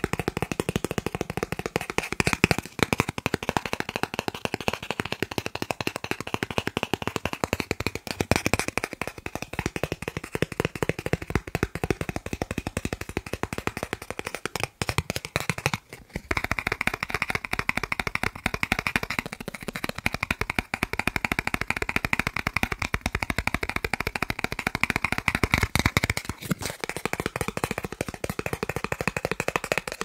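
Fingers tapping rapidly on a green plastic gift card held close to a microphone: a dense, fast patter of small plastic clicks, pausing briefly twice about halfway through.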